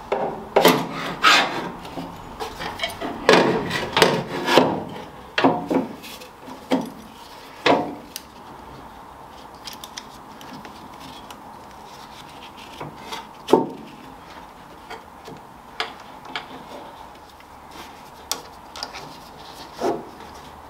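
Wooden axe handle scraping and rubbing against its metal mounting bracket as it is worked into place, a run of rasping strokes over the first eight seconds or so. After that it goes quieter, with a few separate sharp clicks as the webbing strap and metal clip are fastened.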